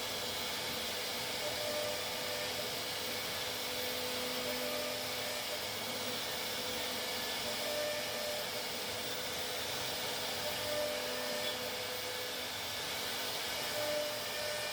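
CNC router running and cutting: a steady whirring hiss of spindle and machine, with a faint tone that swells and fades every few seconds.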